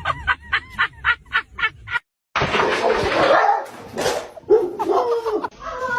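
A small dog yapping rapidly, about four short yips a second, cutting off suddenly about two seconds in. A louder, noisier mix with some short cries follows.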